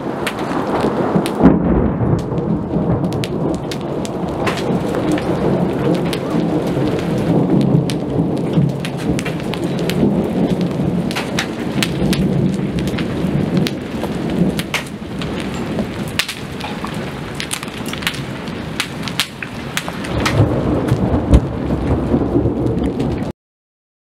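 Thunderstorm: a continuous rolling rumble of thunder under steady rain, with many sharp raindrop taps close by. The rumble swells a few seconds before the end, then the sound cuts off suddenly.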